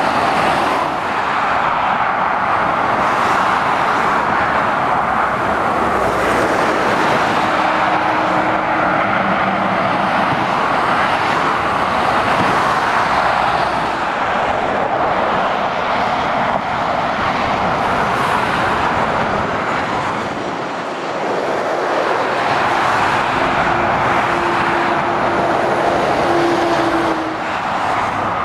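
Steady roar of dual-carriageway motorway traffic, cars and heavy lorries passing below, with the noise easing briefly about two-thirds of the way in and again near the end.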